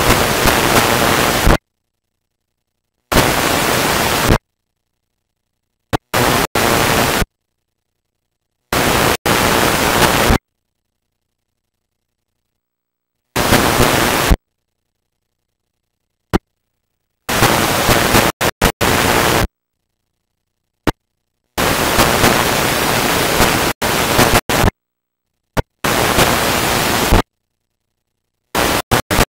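Videotape playback static from a blank or damaged stretch of tape: about nine loud bursts of hiss, each one to two seconds long, cutting in and out abruptly with dead silence between them.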